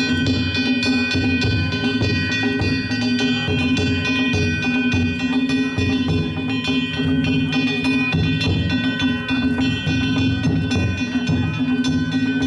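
Danjiri festival music (narimono) played without a break: a large taiko drum beats under rapid strikes on small hand gongs (kane), which leave a constant metallic ringing.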